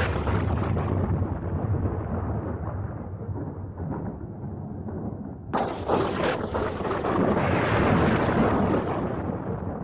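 Rolling thunder: a long rumble dying away, then a sudden new crack about five and a half seconds in that rumbles on and slowly fades.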